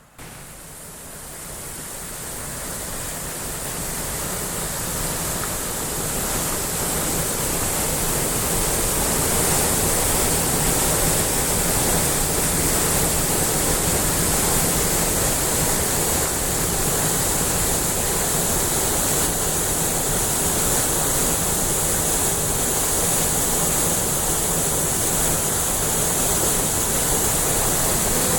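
Waterfall rushing: a steady wash of falling water that starts suddenly, grows louder over the first several seconds, then holds steady.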